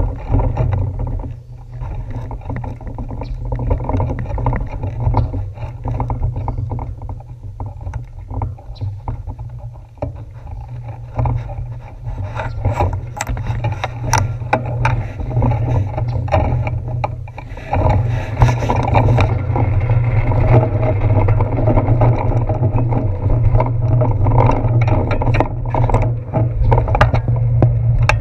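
Low wind rumble on a handlebar-mounted action camera's microphone, with scattered clicks and knocks. It grows louder about two-thirds of the way through as the bicycle gets rolling on wet pavement.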